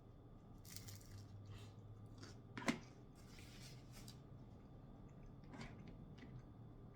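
Faint rustling and small handling noises over a low steady hum, with one sharp click nearly three seconds in.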